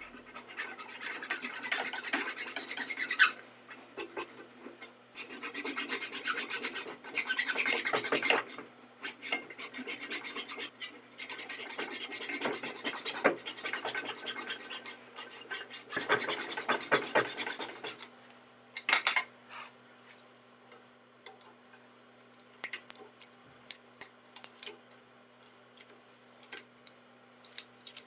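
Rasping, rubbing strokes of a hand tool such as a file working a piece, in several runs of two to three seconds each. These are followed by scattered light clicks and knocks.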